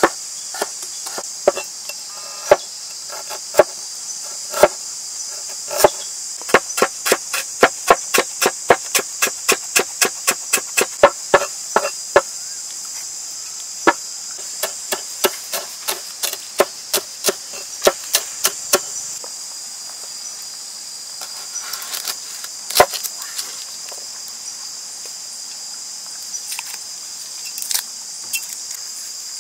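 Large knife slicing lemongrass stalks on a wooden board: sharp knocks that quicken to about three a second in the middle, then slow and stop about two-thirds of the way through. A steady high insect drone sits underneath.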